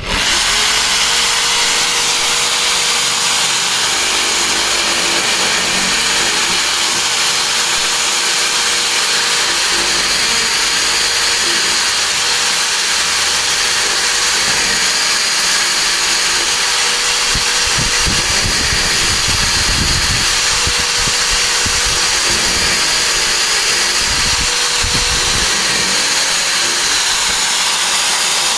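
Electric hand drill clamped in a pillar-style drill stand, running continuously at speed with a steady motor whine while drilling holes into a workpiece. Low rumbling surges come midway through as the bit is fed down into the work.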